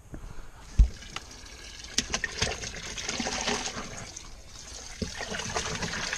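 A hard thump about a second in, then water splashing and trickling in a bass boat's livewell as a hand reaches into it.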